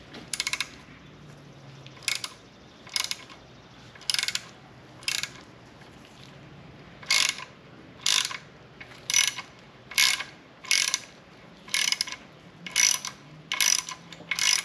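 A hand ratchet clicking in short bursts on each back-swing as it turns a thread tap, cutting new threads in a drilled-out hole in an aluminum cylinder head. The bursts come about once a second, pause for about two seconds midway, then come a little quicker.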